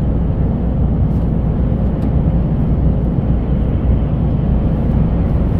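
Steady low drone of a truck's diesel engine and tyres, heard inside the cab while driving.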